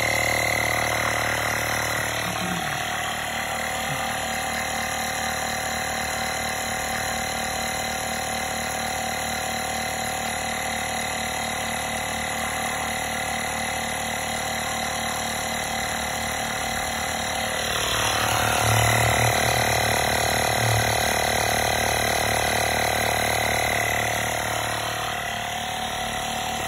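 Nissan Leaf's small 12 V emergency tire-inflator compressor running steadily, pumping air into a car tire. It is louder for several seconds in the second half.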